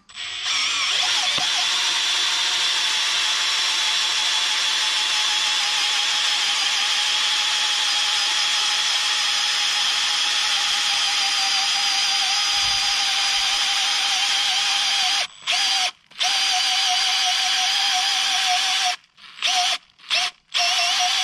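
Makita XFD14 cordless drill running steadily under load as it drives a long wood auger bit into a tree trunk, boring a 1 1/8-inch hole. The motor stops briefly twice about fifteen seconds in. Near the end it runs in several short bursts as the bit is eased to its final depth.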